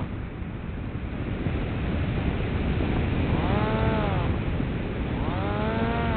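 Pop Wing's electric motor and propeller briefly run up twice, each time rising in pitch and falling away within about a second: once about three and a half seconds in and again near the end. Steady wind noise on the microphone underneath.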